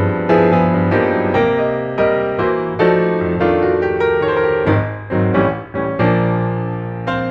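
Background piano music: a gentle melody of struck notes and chords, about two a second, with a few quick notes near the middle.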